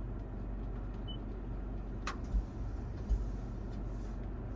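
Steady low hum inside a car's cabin, with one sharp click about two seconds in and two soft low thumps soon after.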